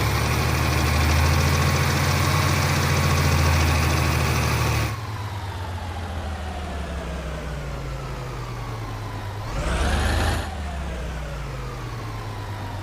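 Fire truck's diesel engine and drivetrain heard from inside the cab. It pulls loudly with a low rumble and a steady whine, then drops off suddenly about five seconds in as the truck coasts, its whine falling in pitch. A brief rising-and-falling surge comes near ten seconds.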